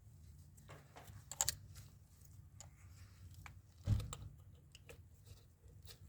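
Hands working on engine parts: scattered small clicks and taps, with one louder knock about four seconds in.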